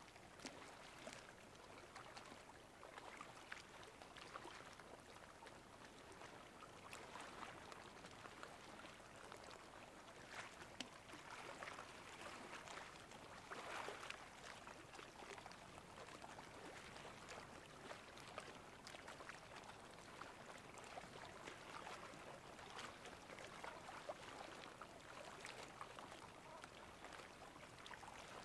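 Faint small waves lapping and trickling at high tide: a soft, irregular splashing of water with no steady tone.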